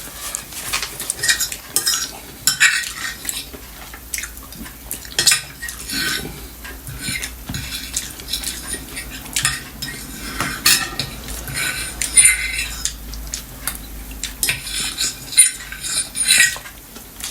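Cutlery clinking and scraping against plates while people eat: a steady stream of irregular small clinks and taps, some with a brief ring.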